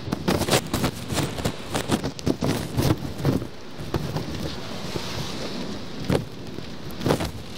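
Heavy rain beating on the glass in front of the camera: a dense patter of sharp drop hits over a rushing hiss. It eases to a steadier hiss about halfway through, and a few heavier hits come near the end.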